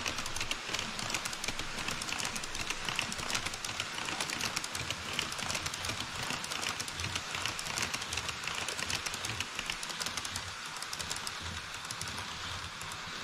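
HO scale model E5 series Shinkansen running across a model truss bridge: a rapid stream of clicks from the wheels on the track over a hiss and a low rumble. It grows a little quieter near the end as the train leaves the bridge.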